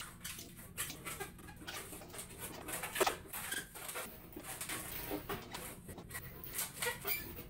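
Long latex modelling balloon squeaking and rubbing as it is twisted and bent by hand, in a string of short, irregular squeaks, loudest about three seconds in.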